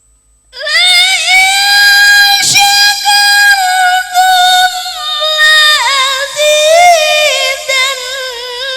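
Qur'an recitation in the melodic tilawah style: a solo voice enters about half a second in on a long, high, held note, then winds through ornamented turns of pitch.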